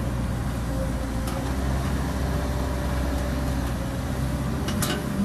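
Caterpillar 312B excavator's diesel engine running steadily under load as the loaded bucket is raised and swung over the truck, with a short clatter near the end.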